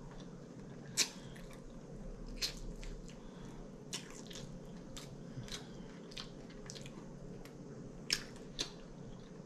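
Mouth sounds of a person eating air-fried chicken wings close to the microphone: wet chewing and lip-smacking, with a handful of short, sharp smacking clicks, the loudest about a second in.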